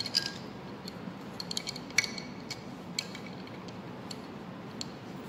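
Scattered light metallic clicks and clinks of a bolt being fitted by hand into the camshaft gear. The sharpest click comes about two seconds in.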